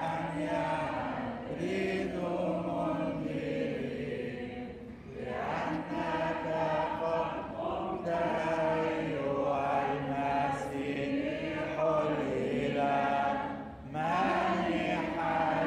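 Parishioners singing an Orthodox church prayer chant together, the melody moving over a steady low held note. The singing dips briefly about five seconds in and again near the end as phrases break.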